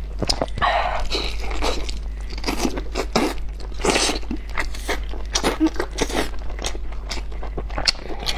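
Close-miked eating of braised lamb ribs: biting and tearing tender meat off the bone, with wet chewing, mouth smacks and short crunches in an irregular string. A steady low hum runs underneath.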